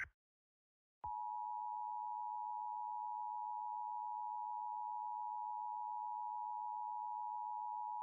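Emergency alert attention tone of a mock NOAA Weather Radio broadcast: after a brief silence, a steady, unbroken electronic tone near 1 kHz starts about a second in and holds without change. It is the alarm that follows the decoded alert header and comes before the spoken severe thunderstorm watch.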